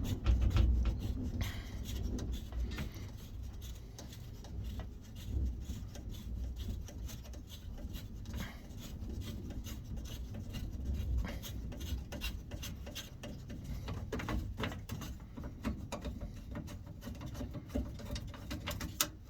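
Irregular rubbing and light scraping as the retaining nut of a 1984 Chevy Blazer headlight switch is turned counterclockwise to loosen it, with small clicks here and there.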